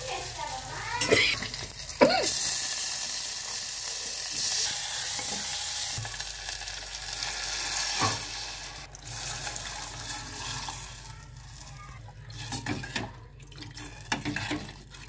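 A hot tempering of oil, cumin, dried red chillies and curry leaves sizzling in a steel pot and stirred with a steel ladle. About two seconds in, water poured onto the hot oil sets off a sudden loud sizzle that slowly dies away. Near the end the ladle clinks against the pot as the liquid is stirred.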